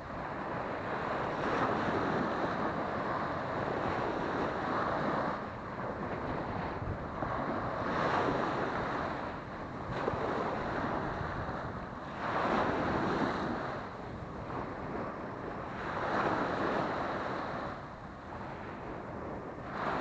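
Small waves breaking and washing up a sandy beach, swelling and fading every few seconds, with wind rumbling on the microphone.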